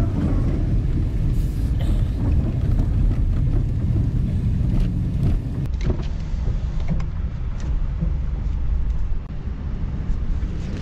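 Pickup truck loaded with scrap metal driving, a steady low engine and road rumble with a few clicks and knocks.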